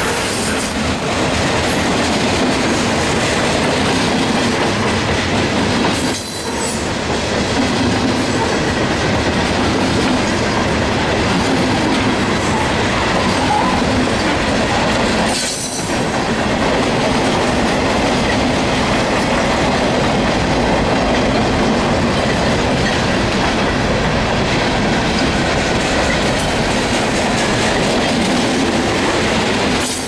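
Freight cars of a Norfolk Southern manifest train rolling past at speed: the steady, loud noise of steel wheels running on the rails, dipping briefly twice.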